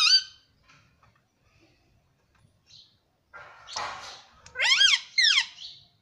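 Male Indian ringneck parakeet calling: a raspy chatter about three seconds in, then two high, sharply pitched calls near the end, the first rising and falling, the second sliding down.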